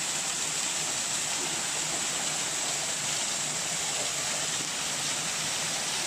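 A small waterfall cascading down a rock face makes a steady, even rush of falling water.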